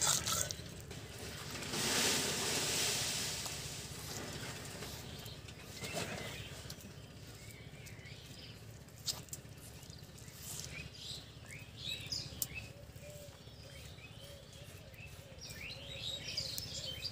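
Small birds chirping in the background, with short chirps coming more often in the second half. About two seconds in there is a brief rushing, scraping noise.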